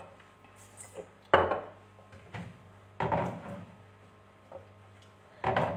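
Kitchen cabinet being opened and rummaged in: a sharp wooden knock about a second in, followed by a few more knocks and short scraping bumps.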